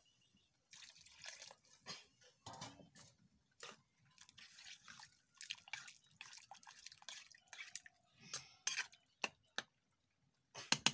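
Water poured from a bowl into a wok of simmering brinjal and dry-fish curry, splashing and dripping in irregular bursts, with a few sharp clicks near the end.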